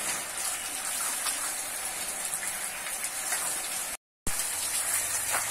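Water from a hose spraying and splashing onto a bull's wet hide and the concrete floor, a steady hiss. It cuts out briefly about four seconds in.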